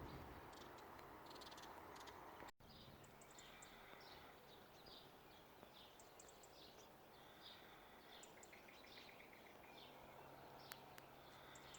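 Near silence with faint small birds chirping and twittering, including a short rapid trill about two-thirds of the way through.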